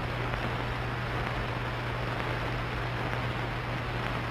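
Wind tunnel fan running, a steady rushing of air with a constant low hum from its drive motors.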